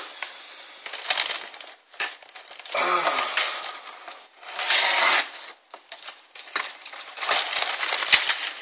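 Workbench handling noise: about four bursts of rustling and scraping, each roughly a second long, as an RC model jet's wing panel, a towel and tape are handled and worked on.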